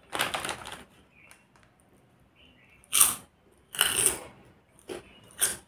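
Plastic snack packet torn open with a crinkle, then a few more short, sharp crackles.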